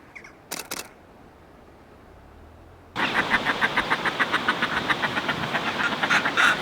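Northern fulmars cackling: a loud, rapid, guttural chatter that starts abruptly about three seconds in, typical of pair-bonding display or a squabble at the nest ledges.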